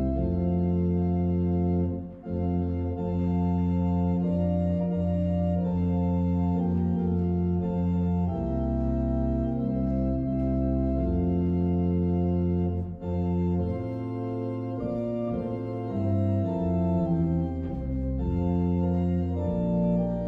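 Organ music: slow, sustained chords over held low bass notes, changing every few seconds, with short breaks about two and thirteen seconds in.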